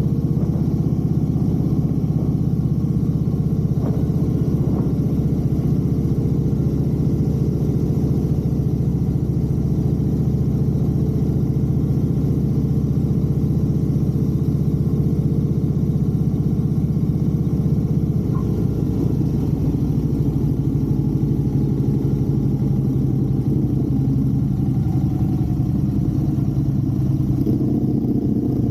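Motorcycle engine running steadily on the move, with a low drone and road and wind noise.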